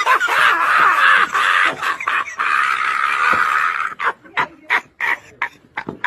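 A man laughing hysterically: a high, shrill squeal held for about four seconds, then breaking into short gasping bursts of laughter.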